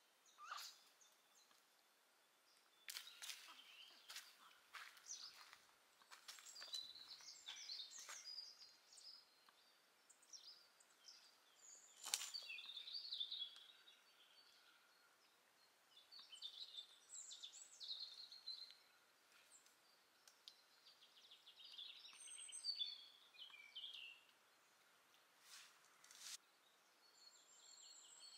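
Faint songbirds singing in short, warbling phrases that come and go, with a few sharp clicks in between.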